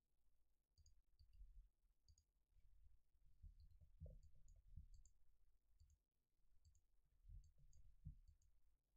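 Near silence, with faint computer mouse clicks and keyboard key taps scattered throughout, several of them in quick pairs, over a faint low rumble.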